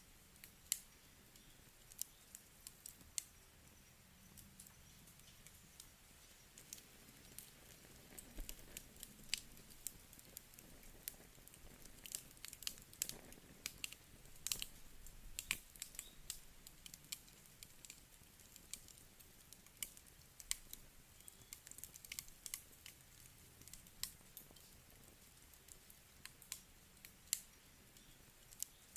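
Wood campfire crackling: irregular sharp pops and snaps from the burning wood, coming thickest about halfway through, over a faint hiss.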